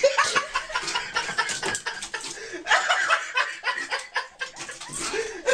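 People laughing in short, breathy, irregular bursts.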